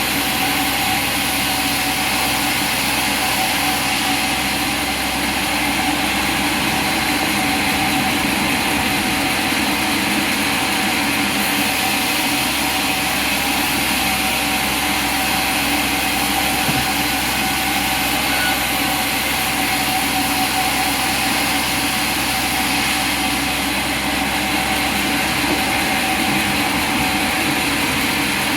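Sawmill machinery running with a steady, unbroken mechanical drone and a constant hum.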